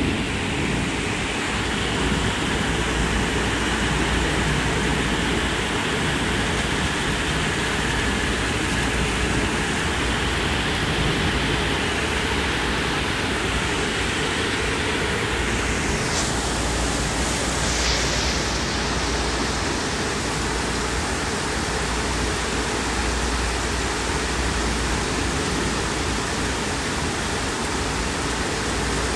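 Steady heavy rain falling, an even hiss. The tail of a thunder rumble dies away at the very start, and a brief swish passes about two-thirds of the way through.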